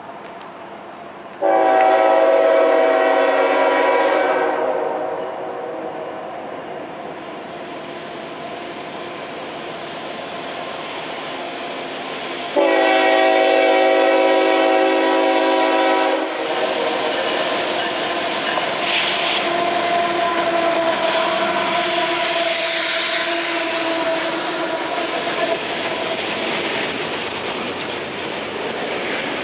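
Norfolk Southern's Lehigh Valley heritage unit #8104, a GE ES44AC diesel, sounds two long blasts of its multi-note air horn for a grade crossing, about a second in and again near the middle. The locomotives and a double-stack container train then roll past close by: steady wheel and rail noise with a ringing tone running through it.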